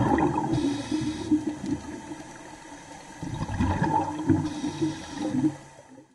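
Underwater bubbling and gurgling sound effect. It is loud at the start, eases off, swells again about three seconds in, then fades out near the end.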